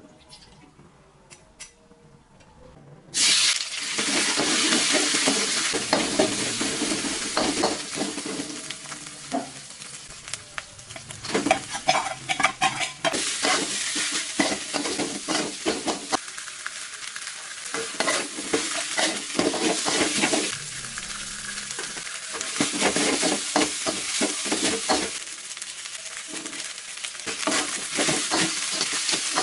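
Stir-frying nasi goreng in a metal wok. About three seconds in, a sudden loud sizzle starts as ingredients go into the hot oil. After that the metal spatula keeps scraping and clattering against the wok over steady sizzling as the rice is tossed.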